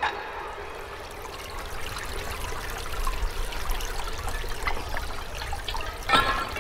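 Water trickling from a spout into a metal pot, with a brief louder burst about six seconds in.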